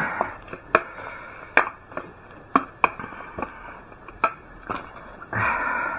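Utensils clicking irregularly against a bowl while chopped raw chilies are stirred and mixed, with a short rustle near the end.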